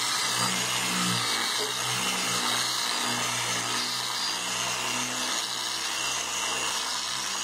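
Dual-action variable-speed polisher from Harbor Freight running steadily with an orange cutting pad on car paint. Its motor makes a whir with a rough buffing hiss, and the low hum wavers slightly in pitch.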